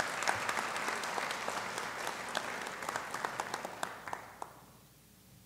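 Audience applauding, a dense patter of claps that dies away about four and a half seconds in.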